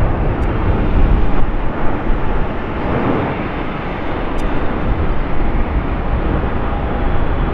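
Airbus A380's four jet engines at takeoff thrust as it climbs out: a loud, steady rumble, heaviest in the deep low end, easing off slightly midway.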